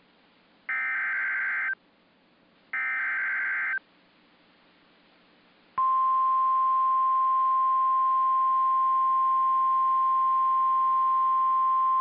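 Emergency alert tones: two one-second bursts of SAME digital header data, then from about six seconds in the steady 1050 Hz weather-radio warning alarm tone, loud and unbroken. The tones signal that a National Weather Service severe thunderstorm warning follows.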